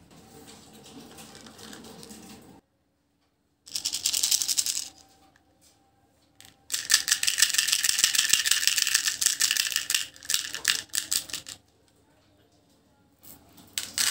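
Small hard sugar-coated candy balls rattling inside a hollow plastic toy as it is shaken: a short spell about four seconds in, then a longer one from about seven to eleven seconds.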